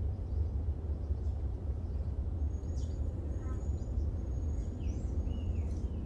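Green-winged saltators singing faintly in the distance, answering each other with short whistled phrases that fall in pitch and a few thin high held notes, coming in about halfway. Under them runs a steady low rumble.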